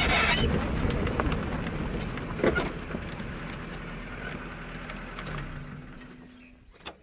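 Safari jeep moving across the grassland, its low engine rumble and wind noise on the microphone fading steadily away, with a bird calling.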